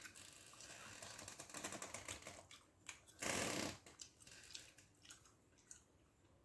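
Fingers mixing rice with fish gravy on a banana leaf: a run of quick, wet clicking for a couple of seconds, then a short, louder rushing burst about three seconds in, followed by a few scattered faint clicks.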